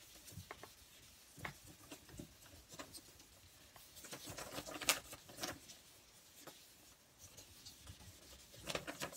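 Chalk pastel being rubbed and blended across paper by hand: irregular soft brushing and scratching strokes, one louder about five seconds in and a quick run of strokes near the end.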